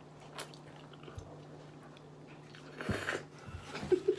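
Quiet chewing and mouth sounds of a person eating, with a few small clicks and a louder smack about three seconds in.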